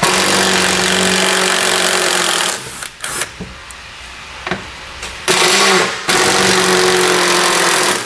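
Cordless power driver with a 10 mm socket spinning bolts out of the underside of the front bumper: a steady motor whine for about two and a half seconds, a short burst, then a second long run starting about five seconds in.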